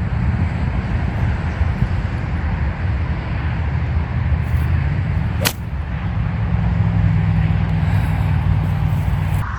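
Steady low rumble with a single sharp crack about five and a half seconds in, like a golf club striking a ball.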